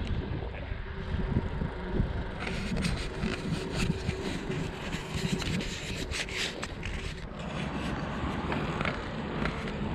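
Bicycle riding heard from a mounted camera: a steady low wind rumble on the microphone, with a spell of rattling and clicking from about two to seven seconds in.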